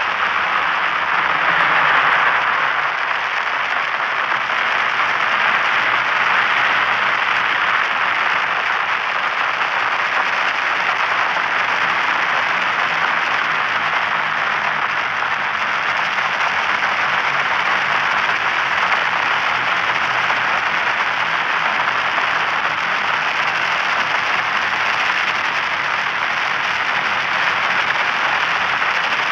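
Steady electronic static: a white-noise hiss with a slight crackle, strongest in the upper middle range.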